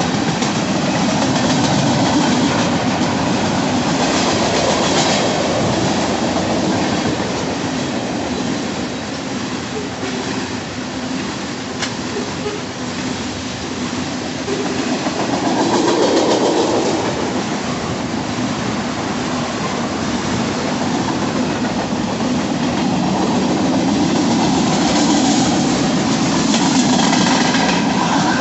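Freight train cars, tank cars and then refrigerated boxcars, rolling past close by: a steady noise of steel wheels running on the rails.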